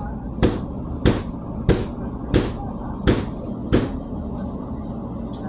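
Bathroom wall tiles being knocked off: six evenly spaced heavy strikes, about one and a half a second, that stop about four seconds in, over a steady low rumble.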